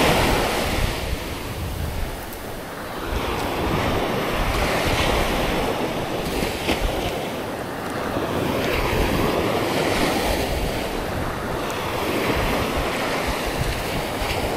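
Surf breaking and washing on a sandy beach, rising and falling every few seconds, with wind buffeting the microphone in a low rumble.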